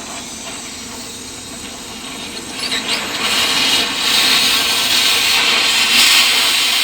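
Power tool, most likely an angle grinder, grinding metal; the harsh hiss builds up about three seconds in and then runs on steadily.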